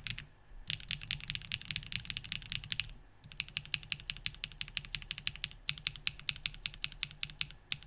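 Typing on a mechanical keyboard with SWK Ripple switches, O-ring mounted with an aluminium plate and no foam. Fast runs of keystrokes, broken by two short pauses about half a second in and about three seconds in, ending with a single keystroke.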